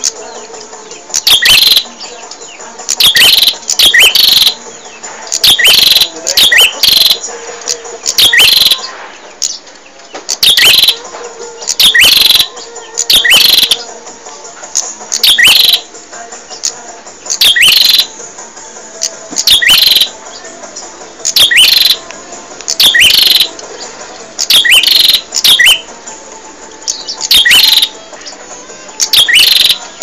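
Prenjak (prinia) singing: loud, sharp, high chirping notes in short bursts of two or three, repeated roughly every one and a half to two seconds.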